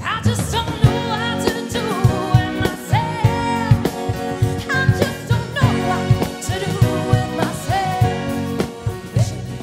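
Sixties-style band music with a sung vocal line over a drum beat.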